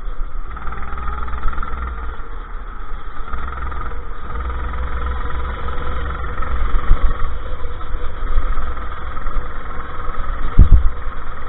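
Go-kart engine running at racing speed, its pitch shifting a little through the corners, over a heavy low rumble. A short, loud low thump comes about ten and a half seconds in.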